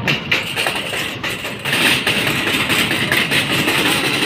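Metal wire trolley rolling fast down a concrete ramp, its wheels and basket rattling steadily. The rattle gets louder a little under two seconds in.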